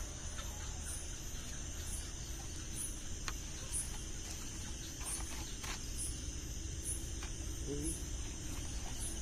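Crickets and other night insects: a steady high-pitched trill with a short chirp repeating about once a second, over a low rumble and a few faint clicks.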